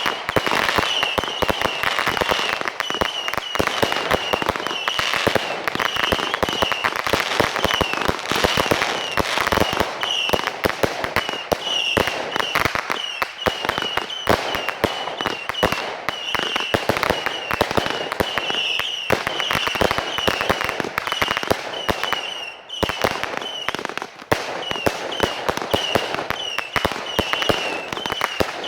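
Fireworks going off: dense, rapid crackling and popping with many sharp bangs, and a short high-pitched tone repeating every half second or so.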